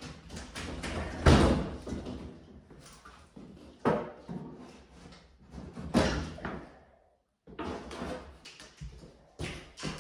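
Wall panels of a framed-in closet being torn off the wood studs by hand: cracking, scraping and thuds. The loudest crash comes about a second in, with more near four and six seconds and smaller knocks near the end.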